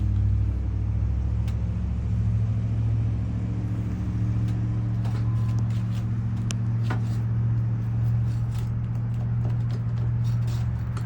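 A steady low machine hum runs throughout, with scattered light clicks and scrapes from a flat bar prying a nail out of roof shingles.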